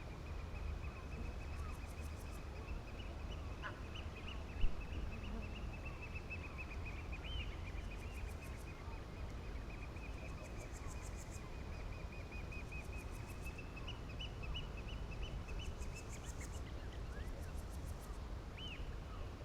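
A flock of birds calling continuously, a steady twittering chatter, over a low rumble. Short, very high, rapid trills come and go, and a single sharp knock sounds about four and a half seconds in.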